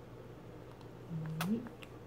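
Baby gumming and sucking on a strawberry: faint wet mouth clicks and smacks. About a second in there is a short hummed voice sound that rises in pitch at its end, with a sharper smack at the same moment.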